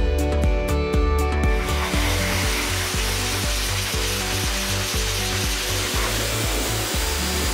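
A strong dog-grooming blow dryer blowing a steady rush of air, coming in about one and a half seconds in. Background music with a steady beat plays underneath.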